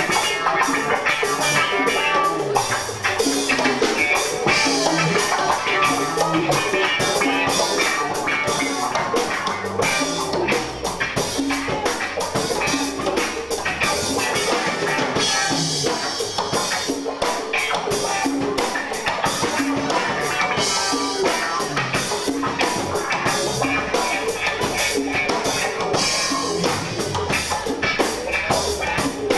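Live rock band playing: a drum kit keeps a steady, busy beat under electric bass and electric guitar.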